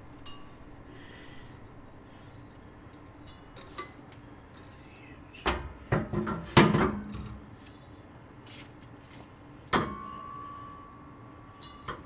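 Metal parts and tools knocking and clanking during the fitting of a train-horn air tank and its mounting brackets. A loud cluster of clanks comes about halfway through, and a single hit near the end leaves a ringing tone that lasts about two seconds.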